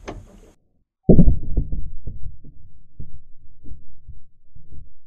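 Slowed-down replay of a 17 HMR rifle shot hitting ballistics gel: a deep boom about a second in, then a run of low, irregular throbbing pulses that fade.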